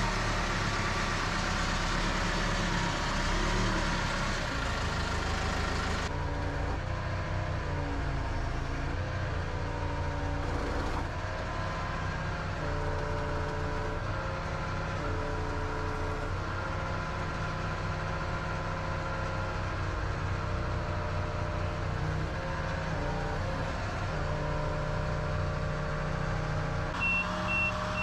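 Manitou telehandler's diesel engine running under load as it lifts a car on its boom, its pitch shifting as the hydraulics work. About a second before the end, rapid electronic beeping of a motion alarm starts.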